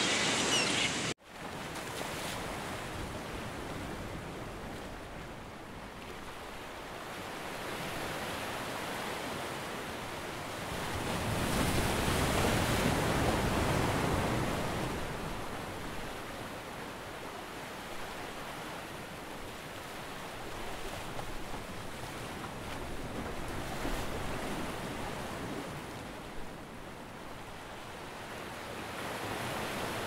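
Ocean surf: waves washing in and drawing back in slow swells, loudest about twelve seconds in and building again near the end. An abrupt cut about a second in breaks off some bird chirps before the surf sets in.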